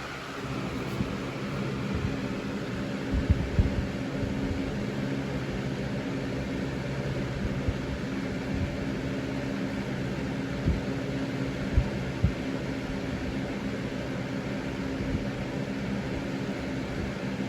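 Air King 9900 box fan running steadily: its replacement motor hums with a few steady low tones under an even rush of air. A few soft low bumps come and go.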